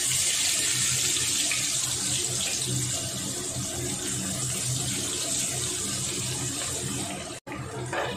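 Sliced onions sizzling in hot oil in a kadai, a loud steady hiss as they are dropped in by hand, easing slightly as the oil cools around them. It breaks off for an instant near the end.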